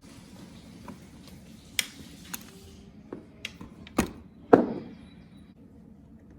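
A few scattered sharp clicks and knocks of something hard being handled, the loudest about four and a half seconds in with a short ring after it.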